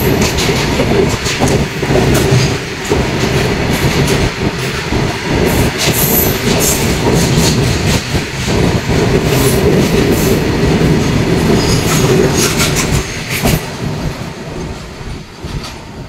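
A long freight train of open-top wagons rolling past close by, its wheels clattering over the rail joints in a steady run of knocks. The sound fades about three-quarters of the way through as the last wagons go by.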